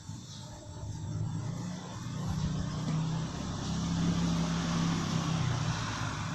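A low, steady engine hum that grows louder about two seconds in and eases slightly near the end.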